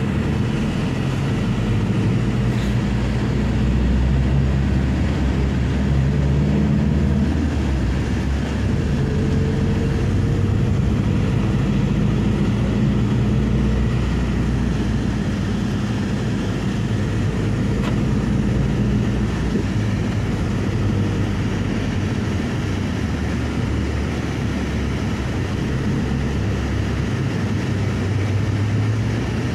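Passenger van's engine and tyre noise heard from inside the cabin while it drives in traffic. The engine hum rises and falls in pitch as the van speeds up and slows.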